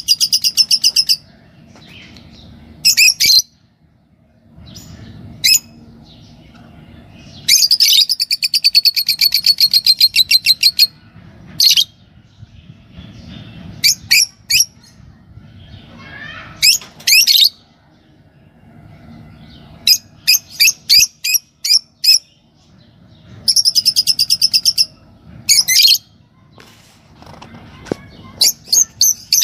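Fischer's lovebirds chirping: loud bursts of rapid high-pitched chirps, each run lasting one to three seconds, with short groups of a few sharp calls in between.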